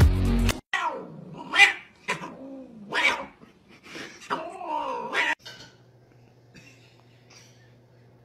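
Cats caterwauling: a string of six or seven drawn-out, wavering yowls that rise and fall in pitch, from two cats grappling in a fight, ending about five seconds in.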